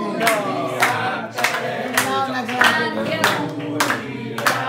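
A small group of people singing together and clapping along in time, with sharp claps every half second or so over the voices.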